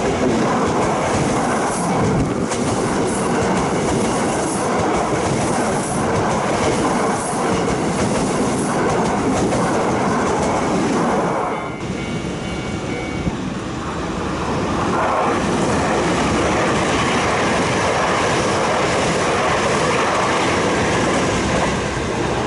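Osaka Metro 66 series electric train running past at close range, with steady, loud rail noise from its wheels on the track. About halfway through the sound dips briefly, then a passing train's rail noise builds up again and runs on steadily.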